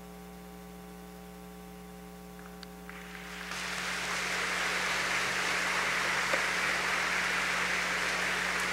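Steady electrical mains hum, then about three seconds in audience applause swells up and carries on evenly.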